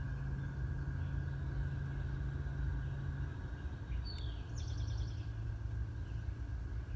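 Steady low churning hum and rumble from under a house, its pitch dropping slightly a little past three seconds in; a bird chirps and trills briefly about four seconds in.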